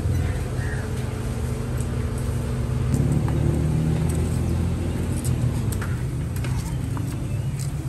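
A motor engine idling steadily with a low hum that gets a little louder about three seconds in. A few light metallic clicks of frying tongs sound over it.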